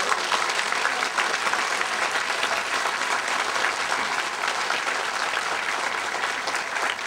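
Audience applause: many people clapping steadily together.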